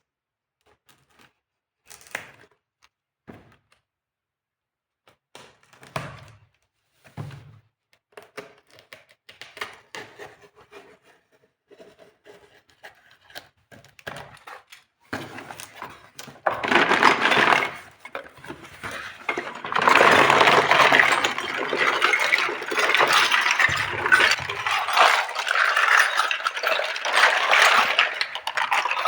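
Small plastic toy kitchen pieces being unboxed and handled: scattered light clicks and knocks at first, then from about halfway a dense, continuous run of crinkling, rattling and scraping.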